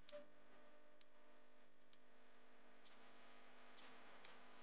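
Near silence: faint room tone with a steady low hum and soft, sharp ticks roughly once a second.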